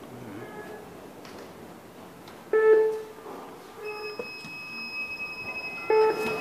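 An electronic chime, a short pitched ding with ringing overtones, repeats about every three seconds. Partway through, a steady high-pitched whine starts and holds under it.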